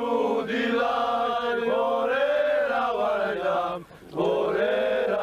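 Slow, chant-like singing in Georgian, with long held notes and a short pause for breath about four seconds in.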